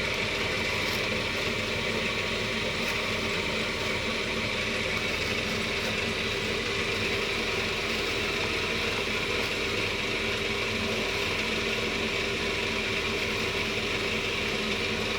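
Cotton candy machine running steadily, its motor spinning the spinner head.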